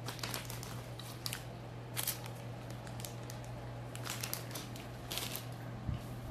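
Plastic snack packaging crinkling as it is handled, in several short crackly bursts, over a steady low hum.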